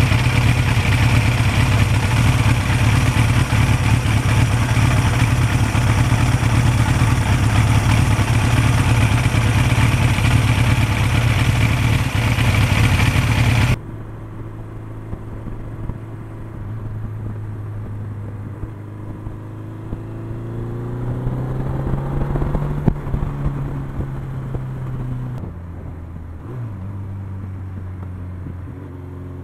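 1982 Suzuki GS air-cooled inline-four motorcycle engine under way, heard from the rider's seat. For the first half it is a loud steady run buried in wind rush on the microphone. After a sudden cut the engine note is quieter and clearer, climbs in pitch as the bike accelerates, and drops abruptly about three-quarters of the way through.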